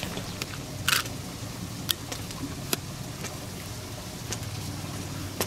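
Footsteps on a paved road as a man and a led camel walk past: a few scattered scuffs and clicks, the loudest a short scrape about a second in, over a steady low hum.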